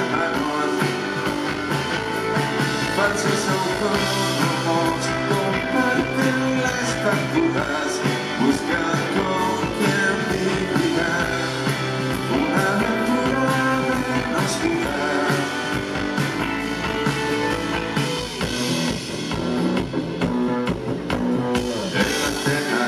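Live rock band playing: electric guitars and a drum kit, with a man singing over them.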